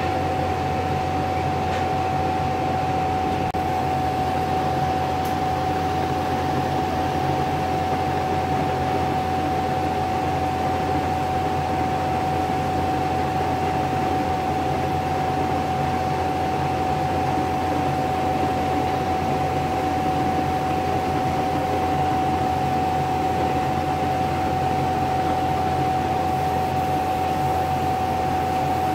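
A machine running steadily: an even fan-like rush with a constant whine and a low hum, unchanging throughout.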